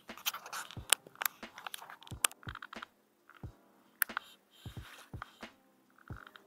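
Irregular sharp clicks and knocks from a baitcasting reel and rod being handled during a lure retrieve, at times several in a second.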